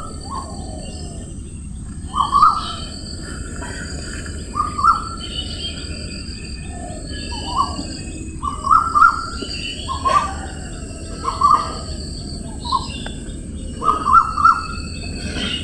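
Wild birds singing: a short cluster of quick notes repeats every second or two, with fainter, thinner high chirps between, over a steady low rushing background.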